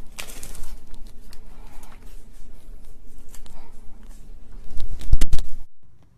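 Hands squishing and poking slime, with many small clicks and crackles. A few loud thumps come about five seconds in, then the sound cuts off suddenly.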